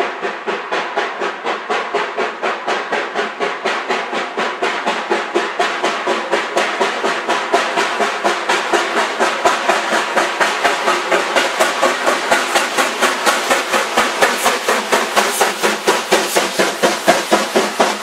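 Steam locomotive working hard with a train, its exhaust beating in a steady rhythm of about four to five chuffs a second and growing louder as it comes closer.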